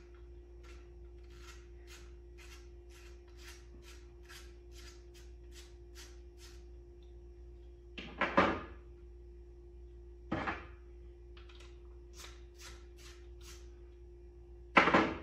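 A hand driver clicking at about three clicks a second as a hex screw is backed out of a rifle chassis's trigger guard, with a shorter run of clicks later. Hard knocks of parts and tools being set down or handled on a table come midway and near the end, over a steady low hum.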